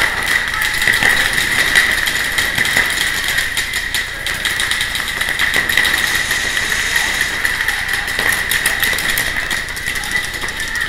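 Paintball markers firing strings of rapid shots, heard as quick clusters of sharp pops, over a steady high-pitched hum.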